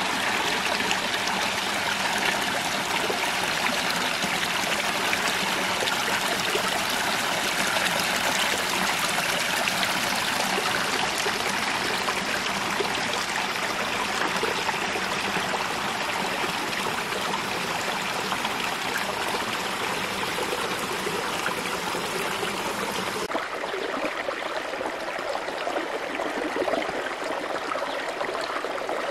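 Shallow stream trickling and splashing over rocks, a steady rush of running water. About three-quarters of the way through it cuts abruptly to a thinner, lighter water sound.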